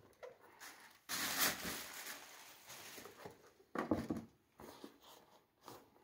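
Handling noise from a pair of suede sneakers being turned over in the hands above a tissue-paper-lined shoebox. There is a stretch of rustling about a second in, then a few short scuffs and soft knocks.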